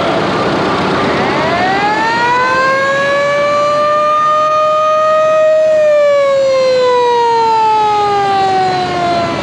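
Siren on a vintage red fire truck driving past: one long wail that winds up in pitch for about four seconds, holds briefly at the top, then slowly winds down.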